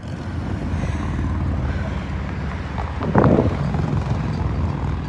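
A tugboat's diesel engine running with a steady low rumble, with a brief louder surge about three seconds in.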